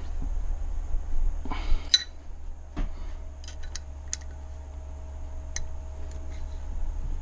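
Metal hand tools and parts being handled on a workbench: a short scrape, then a few sharp separate clicks and clinks, over a steady low hum.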